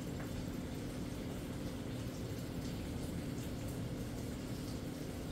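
Bacon sizzling in a frying pan, a steady hiss, over a steady low hum.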